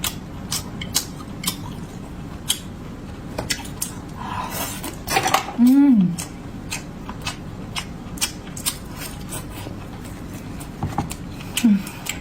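Eating at the table: scattered sharp clicks and clinks of utensils and seafood shells. A short falling vocal 'mm' comes about six seconds in, and a briefer one near the end.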